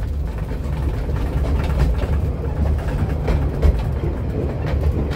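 Narrow-gauge railway carriage running along the track, heard from on board: a steady low rumble with a few short knocks from the wheels and running gear.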